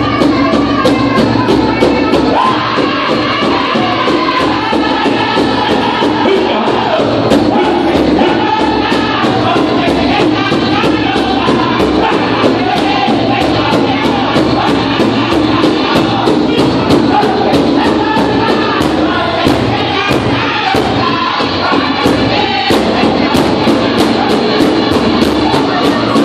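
Powwow drum group singing together over a steady, fast drumbeat on the big drum: a fancy shawl dance song.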